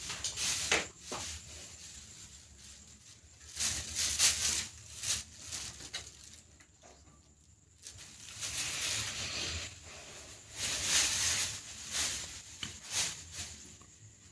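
Hands rubbing and stroking over skin in a relaxation massage, an irregular swishing and brushing in clusters with a quieter pause in the middle.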